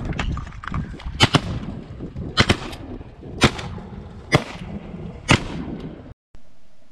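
Volley of shotgun fire from several duck hunters shooting at ducks: about seven shots over five seconds, some in quick pairs, then roughly one a second.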